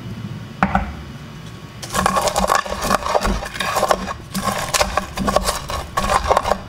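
Wooden pestle crushing fried peanuts, chillies and garlic in a glazed clay mortar: a fast, irregular run of crunching scrapes and knocks that starts about two seconds in.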